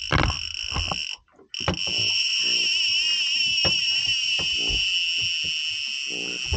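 Fishing reel's clicker buzzing without a break as a hooked fish pulls line off against the drag; the anglers take the fish for a tuna. The high buzz wavers in pitch as the line speed changes and cuts out briefly about a second in.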